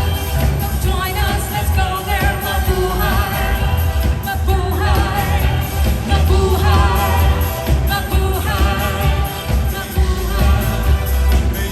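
Live band playing a pop song with a singer, over a heavy, steady bass.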